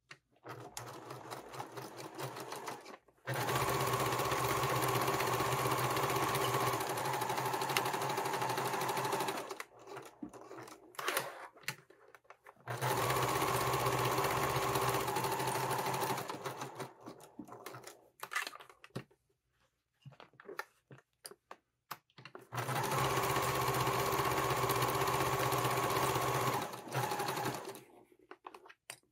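Electric sewing machine stitching a seam in three steady runs of several seconds each. Between the runs are pauses, with small clicks and handling noises as the fabric is turned.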